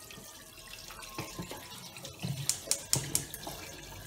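Water poured from a plastic jug into a stainless steel pressure-cooker pot, splashing onto chunks of bone-in meat, with a few louder splashes past the halfway point.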